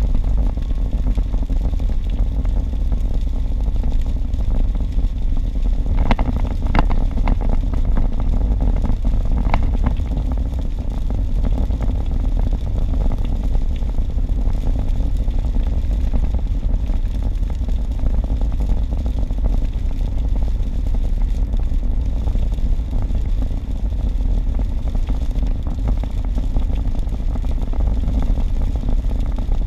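Steady low road and engine rumble heard from inside a car cruising at highway speed on a wet road. A few brief sharp ticks stand out about six to seven seconds in and again near ten seconds.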